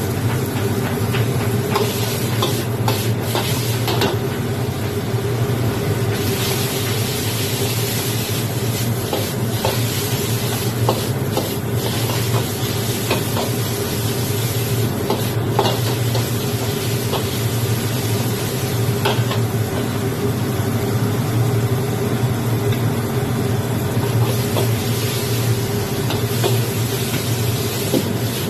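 Noodles and prawns stir-frying in a hot wok: a steady sizzle, with the repeated scrape and click of the spatula against the wok over a constant low hum.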